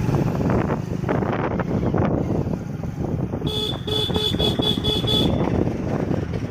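Steady rush of wind and road noise from a Hero Splendor Plus motorcycle on the move. About halfway through, a vehicle horn sounds a quick run of about seven short, high beeps lasting under two seconds.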